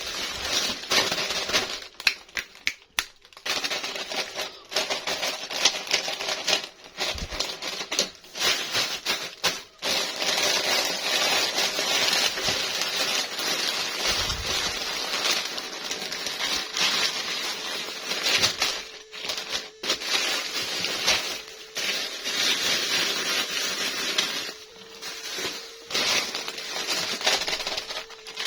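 Packaging being opened by hand: continuous crinkling and rustling of plastic wrap, broken by many quick clicks and taps, with a few short pauses.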